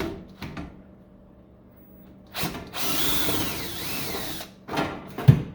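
Power drill backing out a screw from a battery charger's sheet-metal case: a short trigger pull, then the motor runs for under two seconds with its whine rising and falling, and another brief burst follows. A sharp thump comes near the end.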